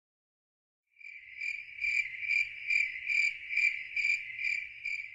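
A cricket chirping in a steady, even rhythm, about two high chirps a second, starting about a second in, over a faint low rumble.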